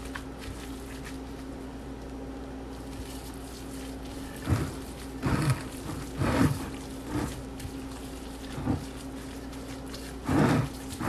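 Gloved hands squeezing and kneading raw ground meat mixed with chopped onion, peppers and seasonings in a glass bowl: a few irregular wet squishes, starting about four seconds in, over a steady low hum.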